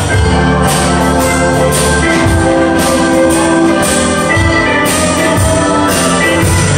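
Live contra dance band of keyboard, fiddle and percussion playing a dance tune with a steady beat.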